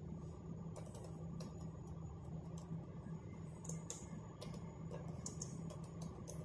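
Faint clicks of computer keyboard keys being typed in irregular runs, over a steady low hum.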